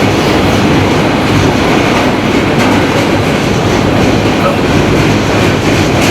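New York City subway car running, a steady loud rumble and clatter of wheels on rails heard from inside the car.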